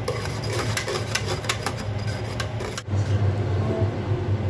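Wire whisk clicking and scraping against a metal bowl while beating a liquid flan mixture, about four or five quick, irregular clicks a second, over a steady low hum. The clicking stops suddenly about three seconds in, leaving the hum.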